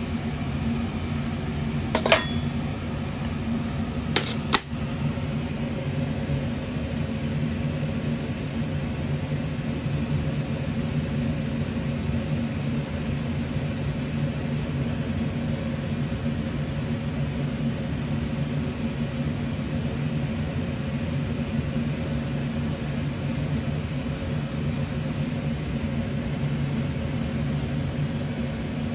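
A steady low mechanical hum, like a small fan motor, runs unchanged throughout. A few sharp clicks come about two seconds in and again about four seconds in.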